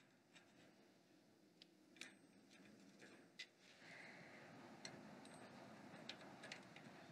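Very faint handling sounds: a few scattered light clicks of small metal parts and a soft rustle of a nitrile-gloved hand fitting a bolt into a tractor's ramshaft bracket, rising slightly about halfway through.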